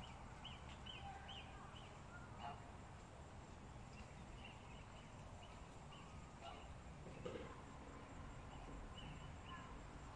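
Faint chicken calls from the hen house: short, high chirps come every half second or so over a low, steady background hum. There is a single soft knock about seven seconds in.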